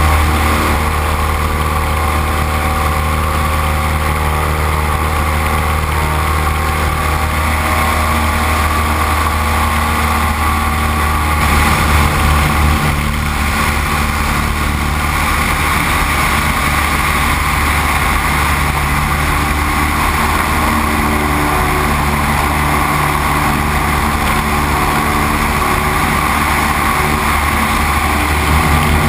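Great Lakes 2T-1A-2 biplane's four-cylinder Lycoming engine and propeller droning steadily in flight, with rushing air noise over it; the level swells briefly about twelve seconds in.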